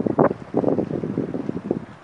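Wind buffeting the microphone in uneven gusts, loudest in the first half and easing near the end.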